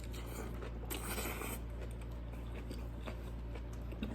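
A bite into a lettuce-wrapped cheeseburger: a brief crisp crunch about a second in, then quiet chewing with small mouth clicks, over a steady low hum.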